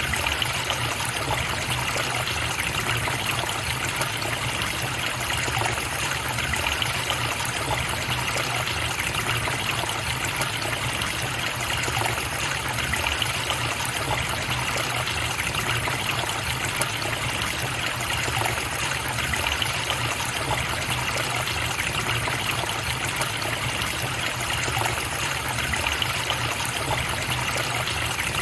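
River water flowing and trickling, a steady, even rush with no breaks or changes.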